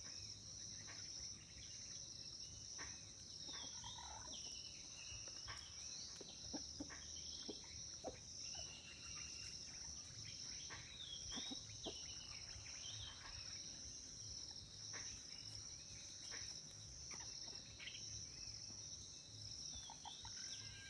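Steady high-pitched insect chorus, pulsing evenly throughout, with scattered short bird chirps.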